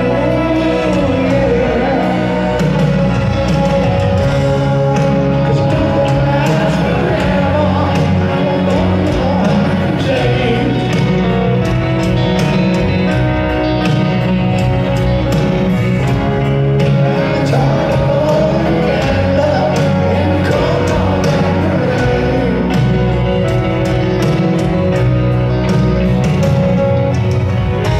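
Live rock ballad played by a band over a stadium PA, recorded from the stands: piano and band with a singing voice.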